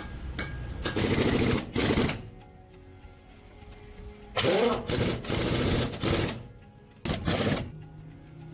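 Pneumatic impact wrench hammering in a series of short bursts, each under a second long, in three groups.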